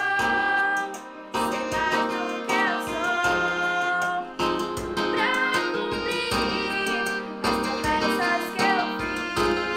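Teenage girl singing a song melody over instrumental accompaniment, in a stage musical number.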